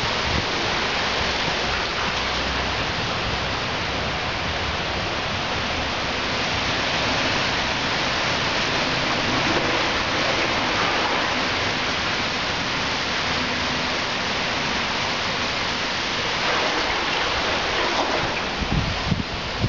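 Steady hiss of rain and running water, with a few low rumbling bumps near the end.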